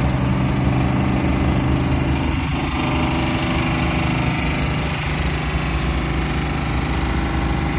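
Caterpillar 914G compact wheel loader's diesel engine running steadily at an even speed.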